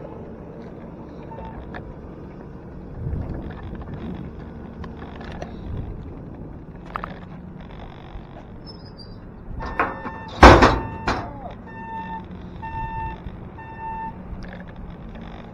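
Bicycle riding over concrete, heard from a handlebar-mounted camera: a steady rumble of tyres and frame vibration. About ten seconds in there is one loud thunk, and then a run of short, evenly spaced electronic beeps.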